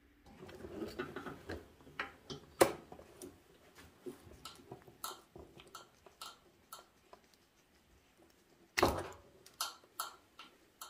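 Clicks and rustles of hands working a scooter's wiring-harness plug and a plastic CDI ignition module. There is one sharp click about a quarter of the way in and a louder clatter of clicks near the end.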